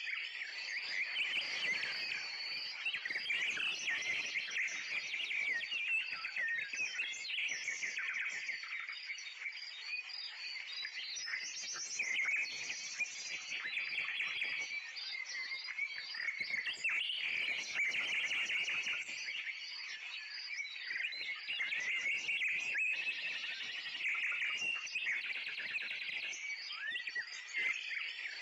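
Many small birds chirping and twittering together in a dense, continuous chorus, with a row of quick repeated high pips running above it.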